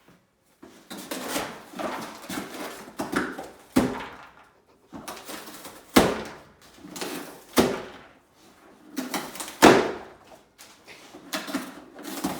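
Dog tearing and shredding a cardboard food puzzle box: irregular bursts of ripping and crumpling cardboard with several sharp snaps.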